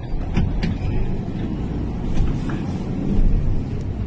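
Steady low rumble of fire engines running, with a few faint cracks.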